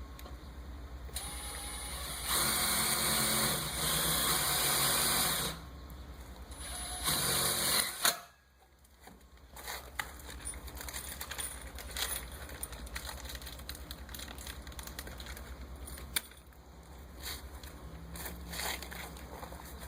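Power drill driving screws into the gate latch hardware in two runs, about three seconds and then about one second long. Scattered clicks of handling follow, over a steady low hum.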